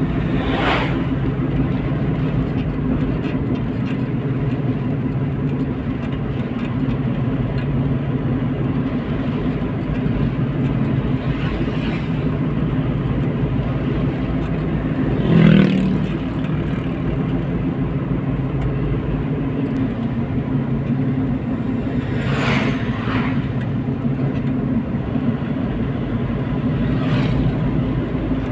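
Car engine and road noise heard from inside the cabin while driving, a steady drone, with a few brief louder swells, the strongest about halfway through.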